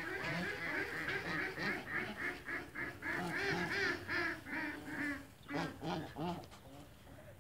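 Domestic waterfowl calling: a quick run of short, repeated calls, about four a second, for some five seconds, then a few spaced calls before it falls quiet.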